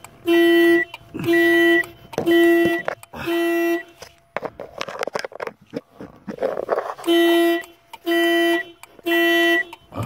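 2006 Toyota Corolla factory car alarm blaring the horn in a steady on-off pattern, about one half-second blast a second, set off by opening the door. The blasts pause for about three seconds in the middle, filled with rustling and handling noise, then resume.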